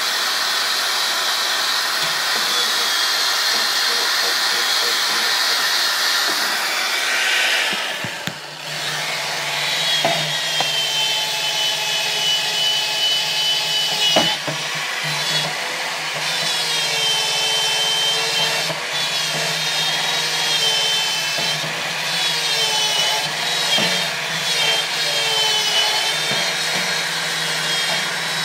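Electric drill with a sanding attachment grinding on a rusty metal battery tray: a continuous abrasive scrubbing over the motor's whine. It stops briefly about eight seconds in, then starts again, its whine wavering in pitch as the load on the drill changes.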